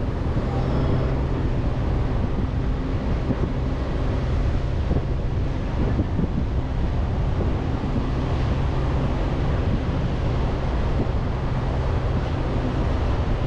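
Chevrolet Colorado ZR2 Bison pickup driving slowly over soft beach sand: its engine drones low and steady, with wind buffeting the microphone.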